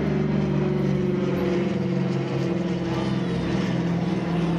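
Douglas DC-3's twin radial piston engines and propellers droning steadily as it flies past overhead.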